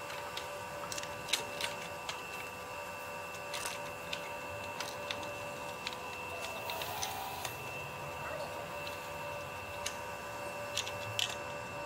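Scattered light clicks and knocks of replica dinosaur vertebrae being set onto a steel skeleton armature, over a steady hum made of several held tones.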